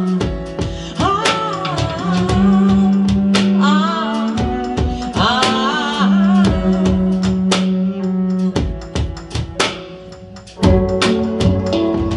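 A live band plays an electro-folk song: a woman sings a melismatic line over a held low note, a steady percussion beat and keyboards. About eight seconds in the voice drops out and the music thins and quietens, then the full band comes back with a loud hit.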